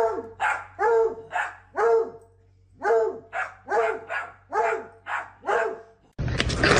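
A dog barking: about a dozen short barks in two runs, with a short pause about two seconds in.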